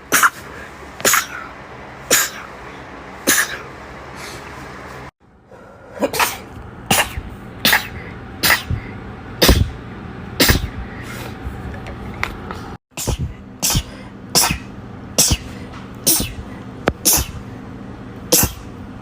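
A young woman sneezing in a rapid fit: about twenty short, sharp sneezes, roughly one a second, with the sound cutting out briefly twice.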